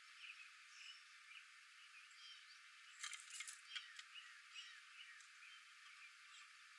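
Faint outdoor chorus of many short, high chirps and calls from small animals, with a brief cluster of sharp clicks about three seconds in.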